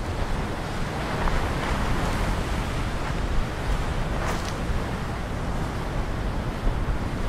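Sea surf breaking and washing against a rocky shore, with wind rumbling steadily on the microphone.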